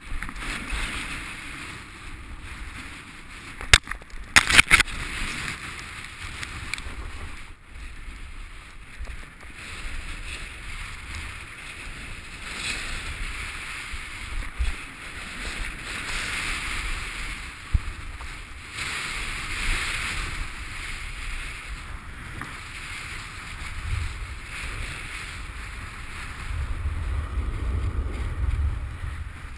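A downhill rider sliding over snow: a continuous scraping hiss of edges on the packed snow, swelling and easing with the turns, with wind buffeting the action-camera microphone. A few sharp knocks about four seconds in, and stronger wind rumble near the end.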